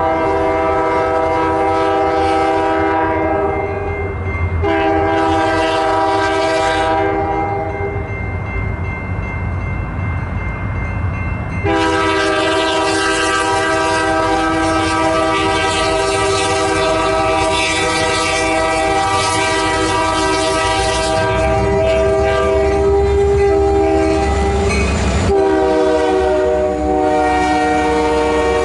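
Union Pacific diesel locomotive's air horn sounding for the grade crossings: a blast, a brief break and another blast, then a pause of about five seconds, then one long blast of about fourteen seconds, and another starting near the end. Underneath, the low rumble of the diesel engines grows as the locomotives pass close by.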